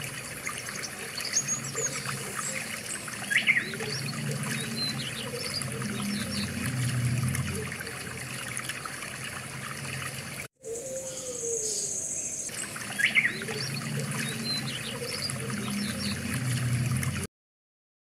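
Outdoor wetland ambience: birds chirping and calling over a steady wash of trickling water. The sound drops out briefly about ten seconds in and stops about a second before the end.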